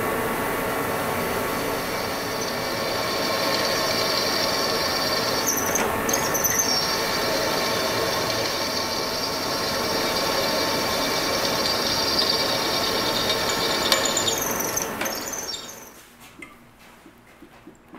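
Power drill boring a hole through a rusty steel part with a twist bit, a steady high squeal as the bit cuts and throws off metal chips; it stops near the end. The hole is being drilled for tapping.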